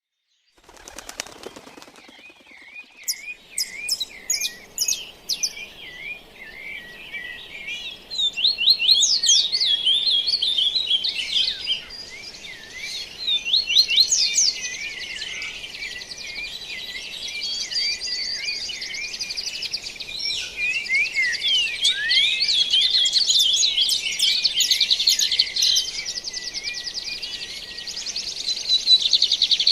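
Dawn chorus of several songbirds singing at once: many overlapping high chirps, whistles and trills, sparse at first and much denser and louder after about eight seconds.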